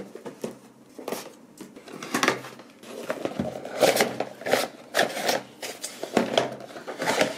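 A cardboard action-figure box being opened by hand: irregular scrapes, taps and rustles of cardboard and packaging being pulled apart and handled.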